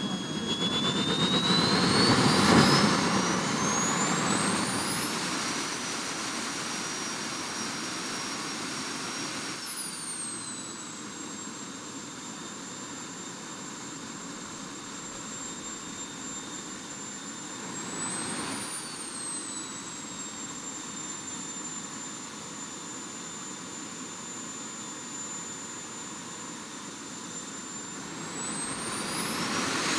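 Small turbine jet engine of a jet-powered buggy running with a high whine over a rushing blast. It spools up in the first few seconds, holds a steady high pitch, throttles back at about ten seconds, gives a short burst of throttle around nineteen seconds, and spools up again near the end.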